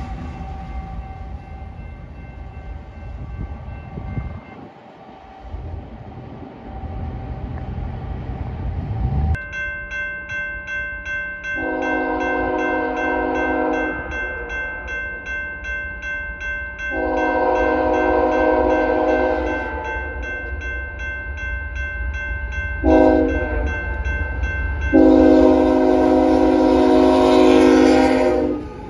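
Freight train rumbling on the rails, then a grade-crossing bell ringing while a BNSF diesel locomotive's air horn sounds the crossing signal: two long blasts, a short one and a final long one, each louder as the train nears.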